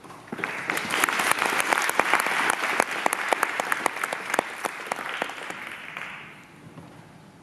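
Audience applauding, a dense patter of many hands clapping. It starts about half a second in and dies away over the last second or so.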